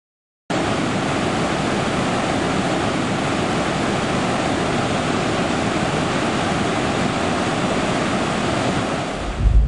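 Rushing waterfall, a steady roar of falling water that starts abruptly about half a second in. A deep low rumble sets in just before the end.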